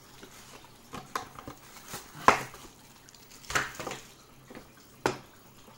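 Handling noise from a cardboard box and a plastic-wrapped bicycle phone holder being taken out of it: a few short knocks and crinkles, the sharpest a little after two seconds in.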